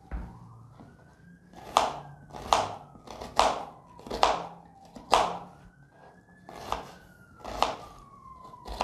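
Kitchen knife slicing through an onion and striking a plastic cutting board, about eight chops roughly a second apart. Behind them a fainter siren wails slowly up and down.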